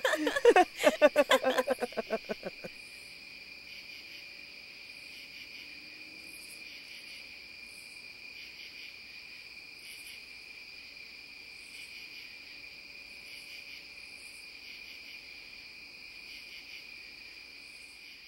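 Two people laughing for the first couple of seconds, then crickets chirping steadily in a continuous high trill.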